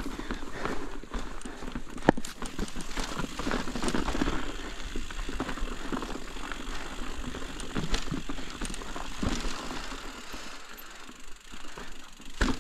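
Mountain bike riding over a rough, rocky trail: tyres rolling on loose rock with frequent sharp clicks and knocks.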